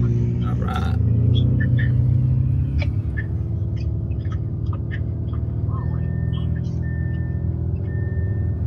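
A car engine heard from inside the cabin, running with a steady low drone that grows a little louder about a second in. From about six seconds in, a high beep repeats about once a second, like a car's warning chime.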